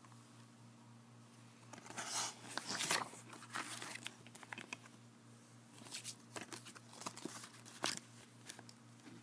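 A plastic DVD case and its paper insert being handled: crinkling and rustling with sharp clicks of the case, in two bouts, the loudest about three seconds in. A faint low hum runs underneath.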